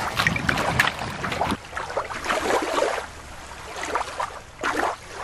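Shallow river water sloshing and splashing at the shore in irregular bursts, louder for the first second and a half, then quieter with a few scattered splashes.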